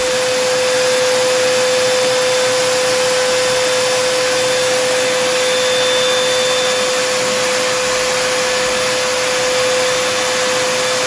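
Electric paint sprayer running steadily, blowing air to pressurize a closed box: an even rushing hiss with a steady mid-pitched whine, unbroken throughout.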